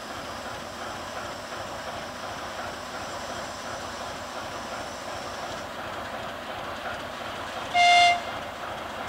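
Freight train running past with a steady noise of wagons on the rails, cut by one short, sharp locomotive horn toot near the end, the loudest sound.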